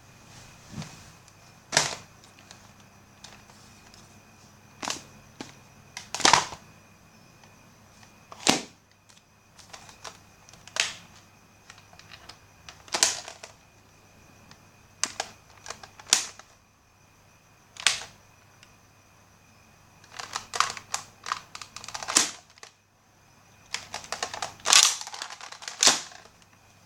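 Nerf blaster clicks and shots: single sharp snaps a second or two apart, then quicker runs of clicks near the end.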